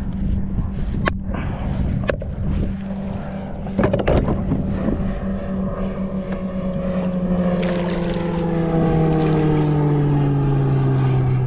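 Motorboat engine drone, steady at first, then sliding down in pitch over the last few seconds while growing louder. A few sharp knocks sound in the first four seconds.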